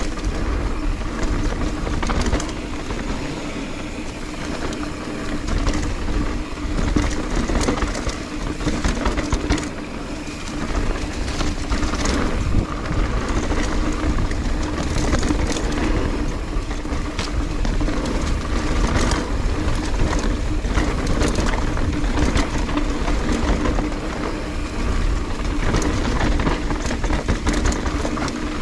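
Transition mountain bike descending rough dirt singletrack at speed: tyres rumbling over dirt and roots, with frequent knocks and rattles from the chain and frame over bumps. Wind buffets the action camera's microphone with a steady low rumble.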